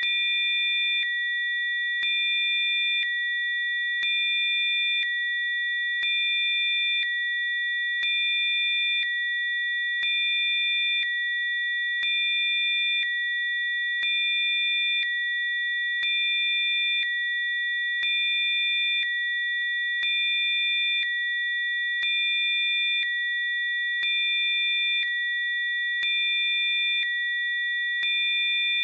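A chord of pure electronic sine tones, mostly high-pitched, held steady, with a slight pulse each second as some fainter tones switch on and off.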